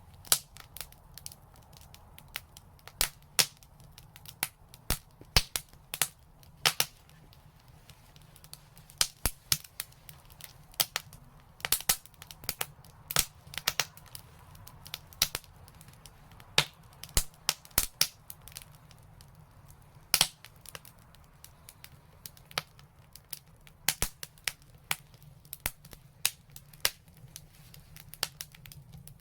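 Wood fire crackling: irregular sharp pops and snaps, several a second, over a faint low steady rush of the flames.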